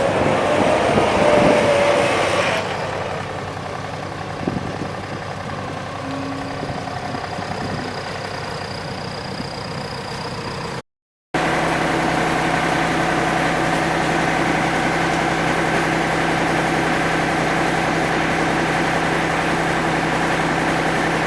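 A vehicle engine running steadily at idle. It cuts out briefly about eleven seconds in and comes back as a louder, even hum.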